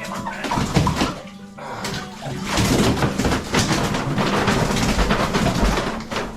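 Water splashing and sloshing in a bucket of warm water as a hen is put in to soak her legs, over acoustic guitar background music.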